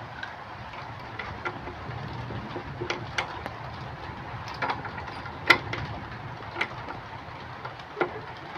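Irregular metal clinks and taps of hand tools and machine parts being handled, the loudest about five and a half seconds in, over a steady low background hum.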